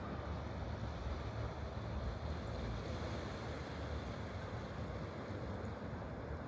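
Water rushing steadily, an even noise with no breaks, heaviest in the low end.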